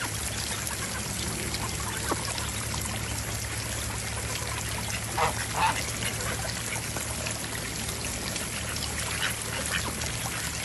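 Birds calling: a quick pair of short calls about five seconds in, with a few fainter calls elsewhere, over a steady trickling-water hiss.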